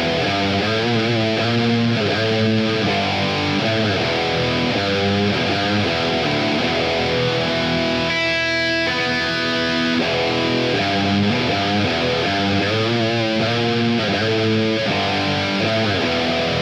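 Hardcore/metal band recording: electric guitar riffing over bass. About halfway through, a chord is held for a couple of seconds, then the riffing starts again.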